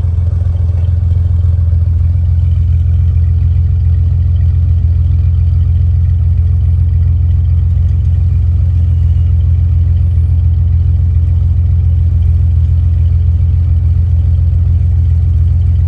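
1944 Willys Jeep's flathead four-cylinder engine idling steadily close by, an even low rumble with no revving.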